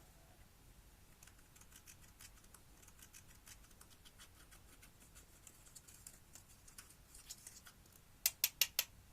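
Slime being squeezed and poked by hand, giving a run of faint sticky clicks and tiny air-bubble pops, then four sharp, louder pops in quick succession near the end.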